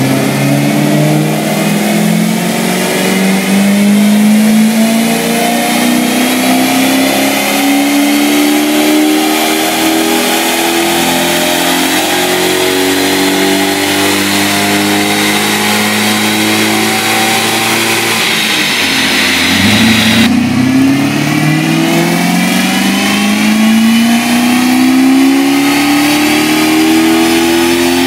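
BMW E34 540i's 4.0-litre V8 under load on a chassis dyno, heard through an exhaust with no catalytic converters or resonators, a 2.25-inch X-pipe and a Supersprint muffler. The engine note climbs steadily for about eighteen seconds, drops back briefly, then climbs again until the end.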